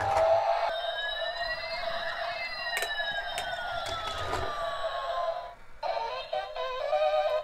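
Toy flying car's electronic sound chip playing through its small speaker: a steady warbling tone with whistling glides that rise and fall, the longest sliding down over about three seconds, then a beeping electronic tune starting near the end. A few sharp clicks sound over it.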